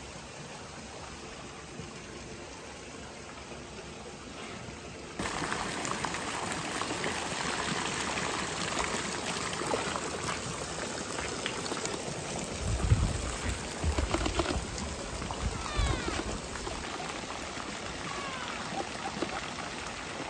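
A few seconds of faint outdoor hush, then a sudden change to steady splashing and trickling water at a swimming pool, where a golden retriever wades in the shallows and a water gun sprays. A few low thuds come in the middle.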